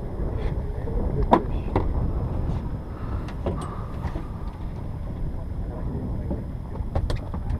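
Steady low rumble aboard a small fishing boat, with a handful of sharp clicks and knocks scattered through it.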